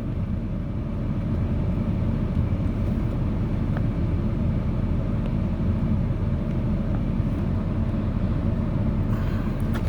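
Steady low rumble with no distinct events, the background hum of a running vehicle.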